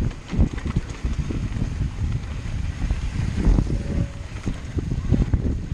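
Wind buffeting the camera microphone on a mountain bike riding a dirt singletrack, with an uneven low rumble and short knocks from the bike and tyres over the bumpy trail.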